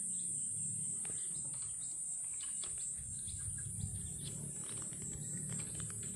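Steady high-pitched buzz of insects, with faint short chirps and ticks scattered through it and a low rumble underneath.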